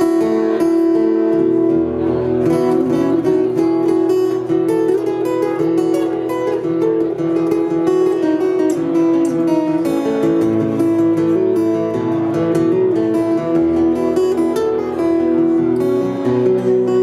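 Solo acoustic guitar played live, a steady run of picked and strummed chords with the bass notes changing every few seconds.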